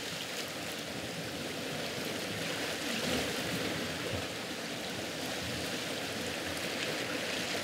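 Sea water washing against concrete breakwater blocks: a steady rushing wash that swells slightly about three seconds in.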